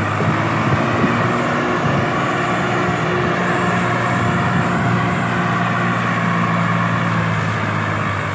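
Swaraj 744 FE tractor's three-cylinder diesel engine running steadily under load as it pulls a trolley loaded with soil through mud.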